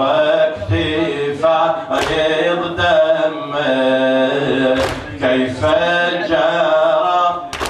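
A man chanting a mournful Shia elegy (latmiya) solo into a microphone, holding long melodic notes. Three sharp slaps come at an even pace, about three seconds apart.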